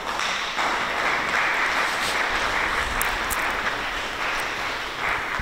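A congregation applauding: many hands clapping steadily, fading away near the end.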